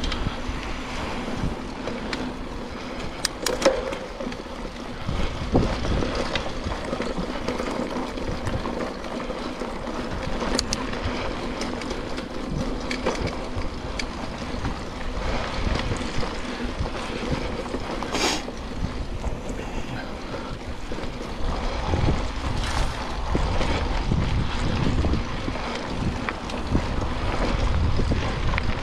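Mountain bike ridden along dirt singletrack: steady wind rushing over the action camera's microphone with tyre and bike noise underneath, broken by a few sharp clicks and rattles.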